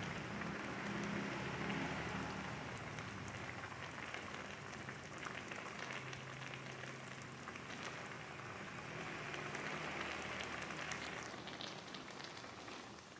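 Sambal of chilies, shallots and garlic sizzling as it fries in oil in a pan: a steady hiss with small crackles, easing off near the end.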